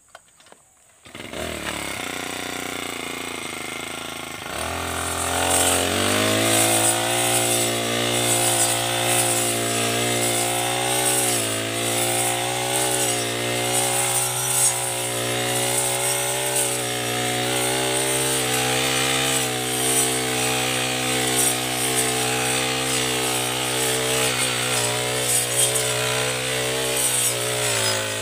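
Four-stroke backpack brush cutter fitted with a round saw blade, coming in about a second in at idle, then revved up about five seconds in and running at high speed as it cuts tall grass, with brief dips in engine speed.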